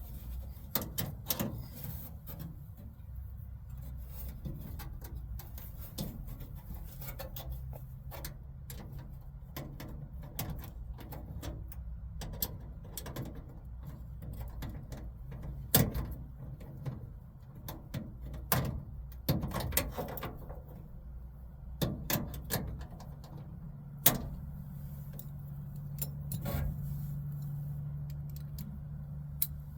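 Scattered clicks, taps and knocks of hand work on a car door's inner parts, with a few sharper knocks along the way, over a low steady hum.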